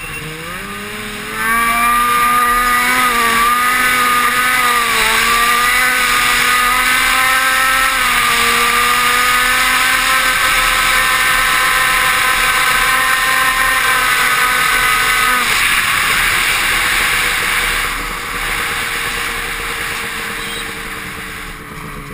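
2003 Ski-Doo REV 800 snowmobile's two-stroke twin engine revving up about a second and a half in and held near full throttle, its pitch wavering, as the sled skims across open water. Around fifteen seconds in the engine note sinks under a rushing noise, and near eighteen seconds the throttle eases and it runs lower and quieter.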